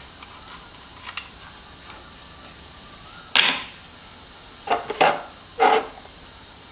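A toddler making mouth sound effects: a few small clicks, then a sharp noisy burst about three seconds in, followed by three more short bursts close together.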